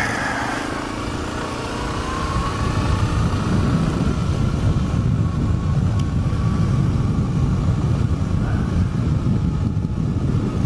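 Suzuki KingQuad 750 ATV's single-cylinder four-stroke engine picking up speed and then running steadily as the quad rides along a gravel road. The sound builds over the first few seconds and then holds at a steady level.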